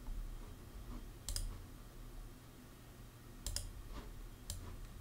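Computer mouse button clicks: one click a little over a second in, then three or four more close together near the end.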